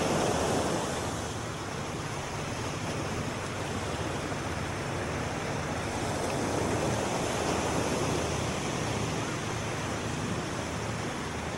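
Ocean surf washing onto a beach: a steady rush of noise that swells and eases.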